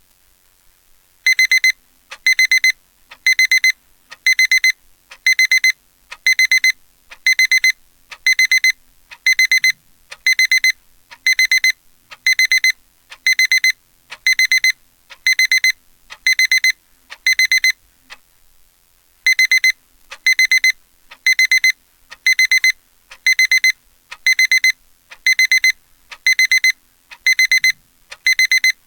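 Digital alarm-clock beeping from a web-page alarm clock: a loud, high electronic tone in clusters of rapid beeps, about one cluster a second. It starts about a second in and skips a beat once, about two-thirds of the way through.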